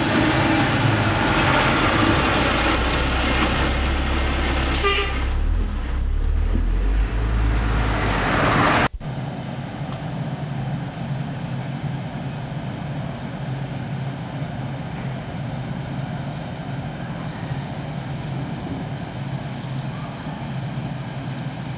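Road traffic: loud motor vehicle engine rumble and road noise for about nine seconds, ending in an abrupt cut. After it comes a quieter, steady low engine hum.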